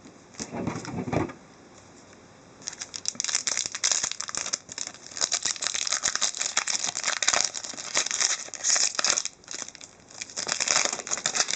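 A hockey card pack wrapper being torn open and crinkled in the hands: a short rustle, then a long stretch of dense crackling from about two and a half seconds in, with a brief pause near the end.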